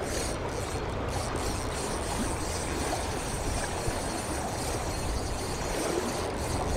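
Shallow river running over a rocky riffle: a steady rush of flowing water.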